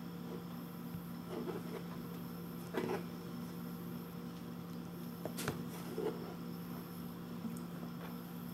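Quiet room tone with a steady low hum, broken by a handful of faint taps and knocks from fingers handling and tapping two smartphones on a table.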